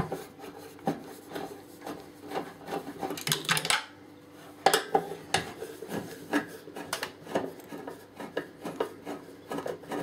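Hands and tools scraping, rubbing and clicking against the parts and sheet-metal chassis of a microwave oven being taken apart, in irregular bursts of small knocks and scrapes, a little louder about halfway through.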